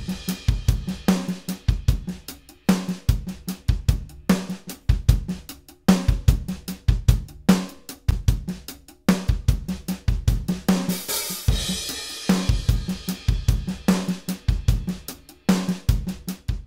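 EZdrummer 3 virtual acoustic drum kit playing a steady groove at 150 beats per minute: kick, snare, hi-hats and cymbal crashes. It runs through the Kiive Audio Xtressor Nuke limiter on the drum bus, blended back with its mix knob turned down.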